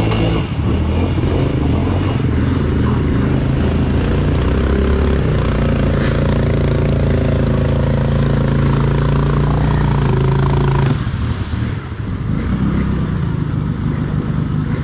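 Off-road vehicle engine revving hard. It climbs in pitch about five seconds in, holds at high revs for several seconds, then drops off sharply near eleven seconds.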